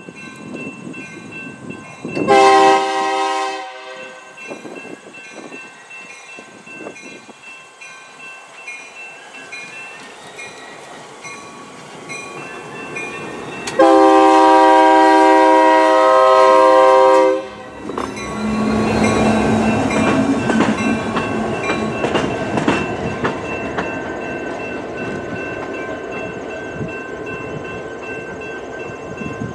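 A Union Pacific diesel locomotive's multi-note air horn sounds a short blast of about a second and a half, then a long blast of about four seconds. A grade-crossing bell rings steadily underneath. The locomotive's engine and wheels then rumble and click past the crossing and slowly fade.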